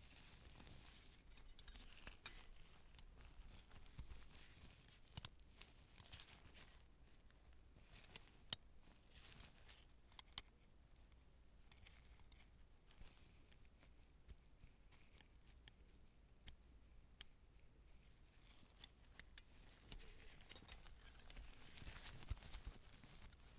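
Metal surgical instruments handled close to the microphone: irregular sharp clicks and scissor snips, scattered through the quiet, the sharpest about eight seconds in.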